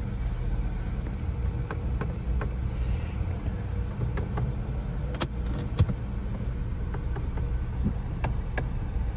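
Car running at idle, a steady low hum, with a few sharp clicks about five and six seconds in and twice more near the end.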